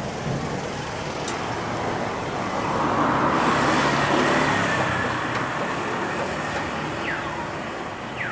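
Airbus A320-214 jet airliner on landing approach: a rush of CFM56 engine noise with a steady high whine that swells about three seconds in and then fades, over a constant background of road traffic. Two brief falling-pitch sweeps are heard near the end.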